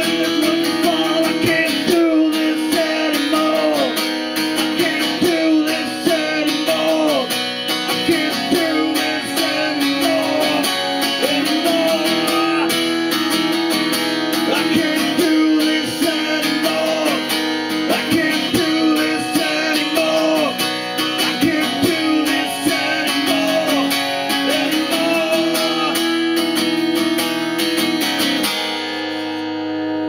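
A man singing while strumming an acoustic guitar, heard through a compact camera's built-in microphone. Near the end the strumming stops and the last chord rings out.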